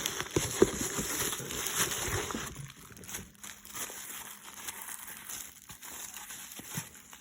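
Packaging crinkling and rustling as an HO-scale model hopper car is unwrapped, loudest in the first couple of seconds. It then gives way to quieter handling with a few soft knocks.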